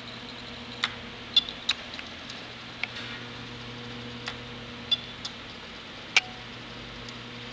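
Dell Studio XPS 1340 laptop giving sharp, irregular clicks over a steady low hum: the noise its owner reports the machine making.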